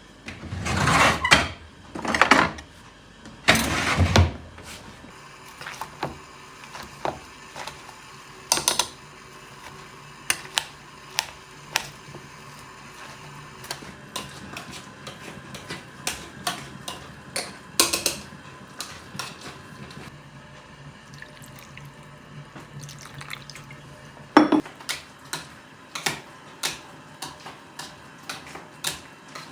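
Water splashing or pouring in three short rushes in the first few seconds, then scattered light knocks and clicks of kitchen work with dishes and utensils.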